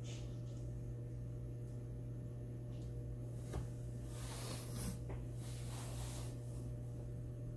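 Quiet room tone dominated by a steady low hum, with a single soft click about three and a half seconds in and two brief soft hissing rustles in the middle.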